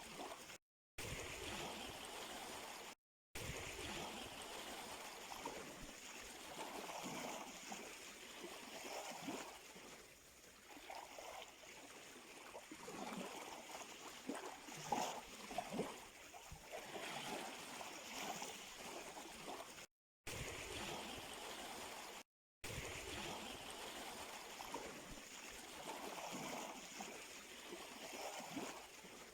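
Gentle sea waves lapping and gurgling at the shore in uneven splashes. The sound cuts out completely for a split second four times: near the start, about three seconds in, and twice around two-thirds of the way through.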